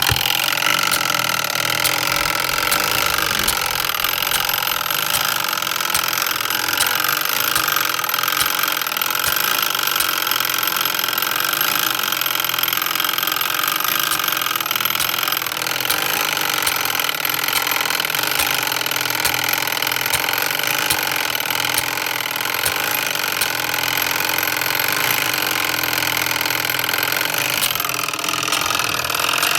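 Samson No. 50 coded fire alarm pull station's mechanism running after being tripped remotely by its solenoid: a steady mechanical sound with faint regular ticks, shifting slightly about halfway through.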